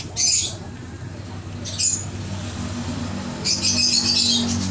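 Caged budgies chirping and chattering in short bursts, with a longer run of chatter near the end, over a steady low hum.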